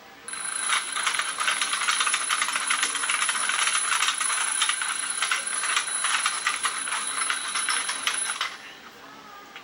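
Alarm clock ringing: a metallic bell struck very rapidly in a continuous rattling ring, which starts just after the beginning and cuts off suddenly near the end, as if slapped off.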